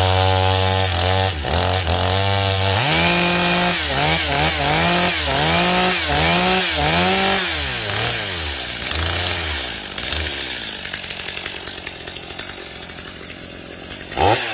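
Stihl MS250 two-stroke gas chainsaw running on its first use while brand new. It holds a steady note for about three seconds, then is revved up and down about once a second. After about eight seconds the engine note fades and only a quieter, rougher running sound remains.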